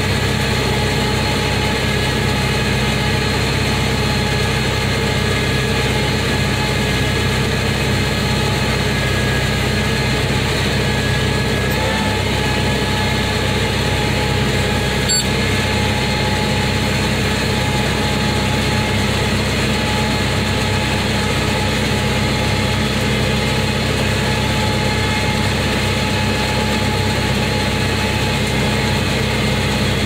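Tractor engine running steadily while pulling a New Holland round baler through the hay, the baler's machinery turning with it. Heard from inside the tractor cab.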